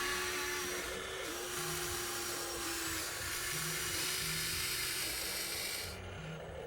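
Small electric motors of a Huina radio-controlled excavator whining steadily, the pitch dipping and shifting slightly a few times as the drives change load.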